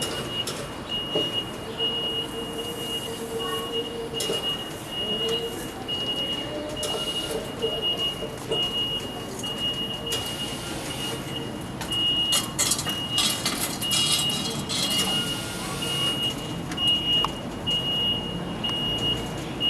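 A construction vehicle's electronic warning beeper sounding a steady high beep about every two-thirds of a second, over engine and street noise, with a few sharp metal clanks in the middle.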